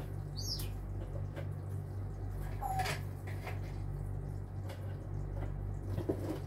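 Crackers being set by hand into a baking pan: faint light taps and clicks scattered through, over a steady low hum. A short high squeak comes about half a second in.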